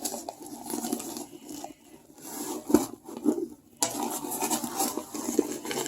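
Rustling and rubbing of a hammock rain-fly stuff sack being handled, with one sharp click near the middle.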